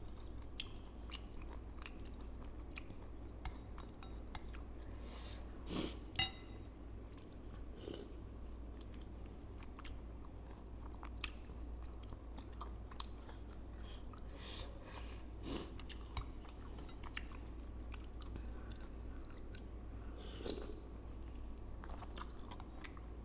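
Close-miked chewing and biting of spicy bakso meatballs and tapioca balls, wet mouth sounds with an occasional crunch. Short light clicks of a wooden spoon and fork against the bowl, with a few louder bites about six, fifteen and twenty seconds in.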